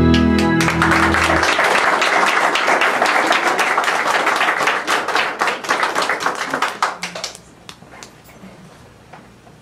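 An audience applauding as the last chord of music dies away in the first second and a half; the clapping runs for about six more seconds, then thins out to a few scattered claps near the end.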